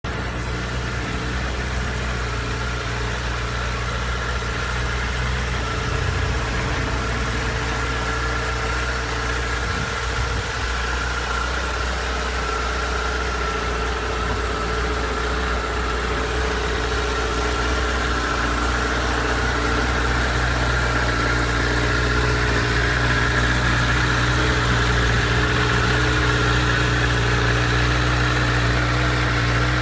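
2015 Honda CBR1000RR SP's inline-four engine idling steadily through its original exhaust, a little louder in the second half.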